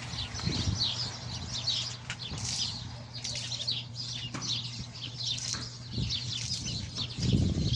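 Many small birds chirping continuously in quick, high, downward chirps. Under them, a water scraper swishes water off a wet horse's coat, loudest near the end, over a steady low hum.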